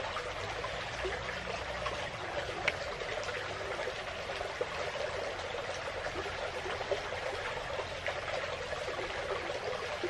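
Creek water trickling and running steadily, with a few faint clicks.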